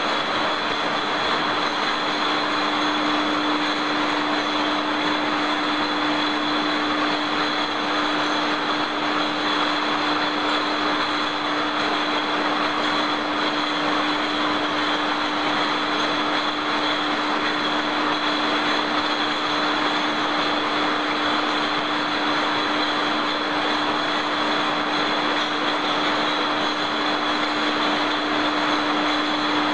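Steady hum of running bottle-handling machinery on a glass-bottle sterilizer line: a constant low drone and a high whine over an even hiss.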